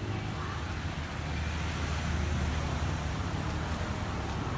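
Steady low rumble with a broad hiss: background vehicle noise.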